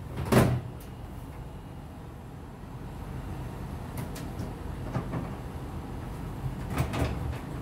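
A thud just after the start, then a steady low hum with a few scattered clicks and knocks near the middle and end: handling noise from work on a dismantled front-loading washing machine.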